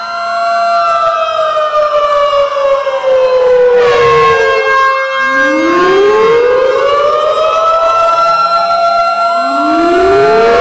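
Several tornado warning sirens sounding together, loud. Their pitch winds slowly down over about five seconds and back up, overlapping one another, with a few steady held tones on top.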